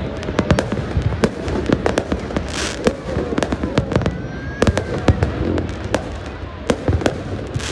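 Fireworks display: aerial shells bursting in many sharp bangs and crackles at irregular intervals, over a steady low rumble.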